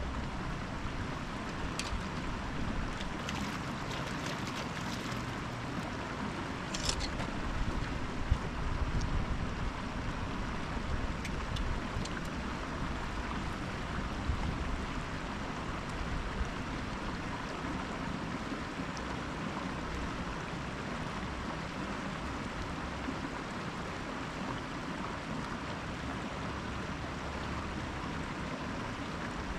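Steady rushing outdoor noise with a low rumble underneath, and a few faint clicks and knocks in the first several seconds.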